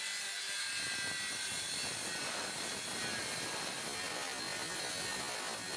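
Ingco handheld electric circular saw cutting along the edge of a solid teak panel door, trimming the side to size: the motor and blade run steadily through the wood, a faint high whine over the hiss of the cut.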